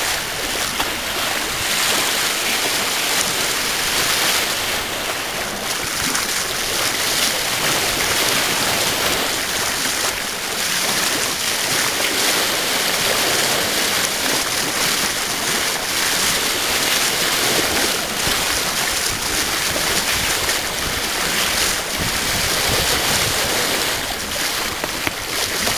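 Steady rushing hiss of wind and water, outdoors, with no engine or voices, swelling and easing a little every few seconds.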